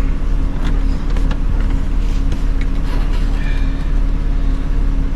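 Steady low mechanical hum with a constant tone, with a few light clicks and knocks from hand work on the car's interior trim.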